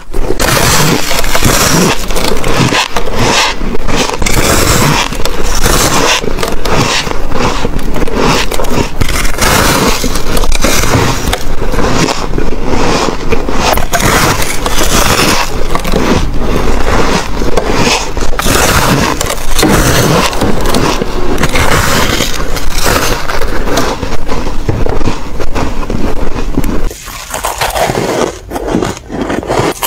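Close-up crunching of packed freezer frost and soft white ice being bitten and chewed: dense, loud crackling crunches, one after another. About 27 seconds in it turns quieter and more broken-up, as crushed ice is chewed.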